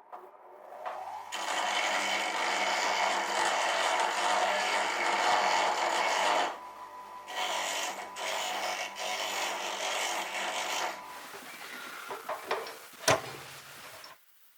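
The steel tang of a lathe tailstock drill chuck's taper arbor being cut off, in two spells of cutting noise with a short break between, followed by a few light clicks and one sharp knock near the end.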